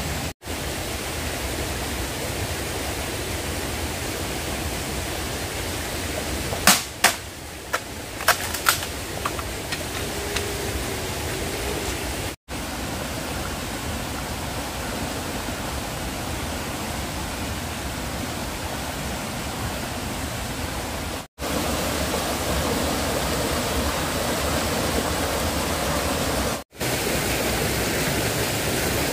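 A steady rushing noise, with a quick run of sharp clicks or snaps about a third of the way through. The noise drops out abruptly for a moment four times.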